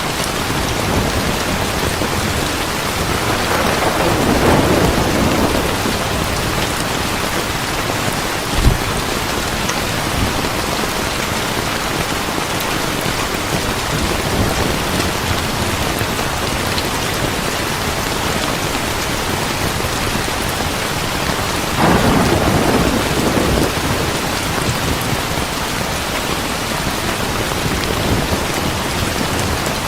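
Heavy rain falling steadily, with thunder rumbling twice: a swell a few seconds in and another about two-thirds of the way through. A single short, sharp low thump comes a little before the ten-second mark.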